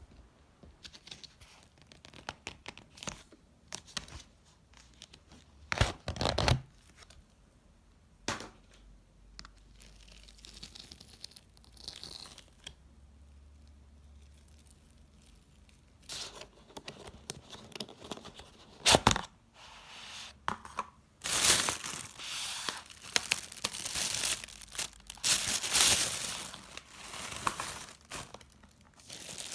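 Packaging being handled and opened: tearing and crinkling with scattered clicks and knocks, becoming denser and louder in the last third.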